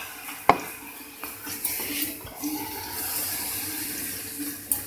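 Spoon scooping and scraping thick carrot halwa out of a metal kadhai into a bowl. There is one sharp clink of the spoon on the pan about half a second in, and a few lighter knocks after it.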